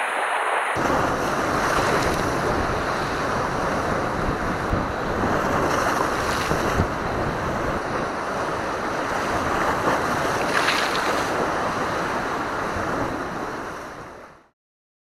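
Sea waves washing against a rocky shore, with wind buffeting the microphone. The sound begins suddenly just under a second in and fades out near the end.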